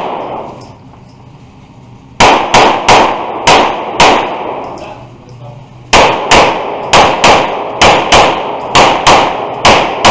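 Semi-automatic pistol shots fired indoors in quick strings, each shot ringing off the range walls: about five shots about two seconds in, a short pause, then about ten more in quick succession from about six seconds in.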